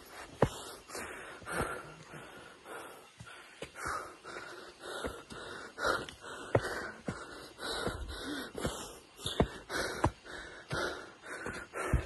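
A person breathing heavily and repeatedly, about once or twice a second, with short sharp clicks, such as steps or knocks, between the breaths.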